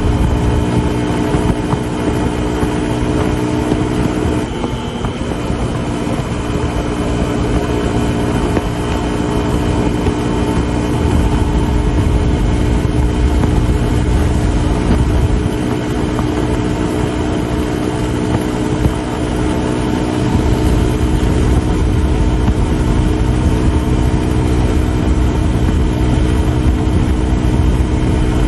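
Suzuki DR150's single-cylinder four-stroke engine running steadily at high speed, at an even pitch, with low wind and road rumble that grows stronger partway through.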